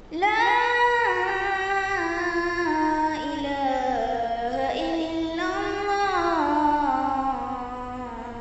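A boy chanting the azan, the Islamic call to prayer, in one long drawn-out phrase. The pitch winds down in ornamented steps, climbs again about halfway through, then falls away.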